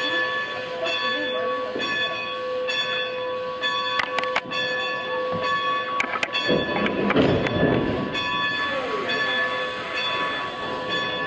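A steam locomotive's bell rings steadily, struck about two to three times a second. Around the middle come a few sharp metallic clanks, then a loud rushing burst lasting a second or two.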